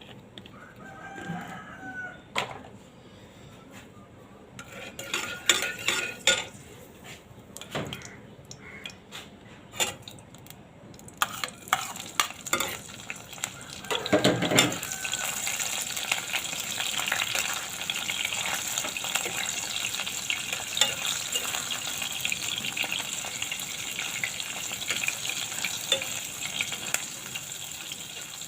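Utensils clicking and knocking against a pan. About halfway through, food starts sizzling and crackling steadily in hot oil.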